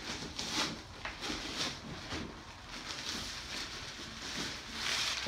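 Fabric drawstring tote bag rustling as it is opened and slid down off a stack of plastic buckets, in a string of irregular swishes and scrapes that are loudest near the end.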